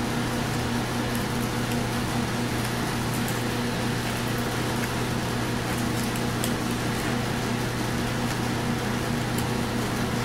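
Steady machine hum with an even hiss, like a fan or air conditioner running, unchanging throughout, with a few faint ticks.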